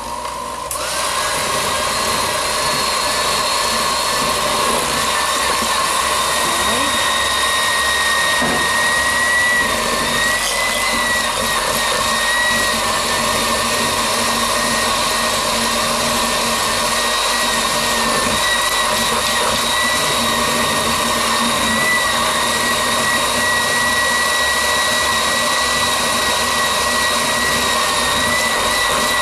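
Electric mixer motor running steadily as it beats a soft flour-and-water batter, starting about half a second in, with a high whine that wobbles slightly in pitch now and then.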